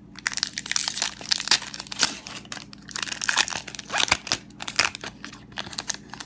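Foil wrappers of Magic: The Gathering booster packs crinkling and crackling as they are handled, in many quick irregular rustles.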